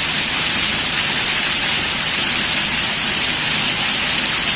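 Heavy downpour on a ship's steel deck, with rainwater pouring in sheets off the top of a steel bulkhead and splashing onto the deck: a steady, dense hiss.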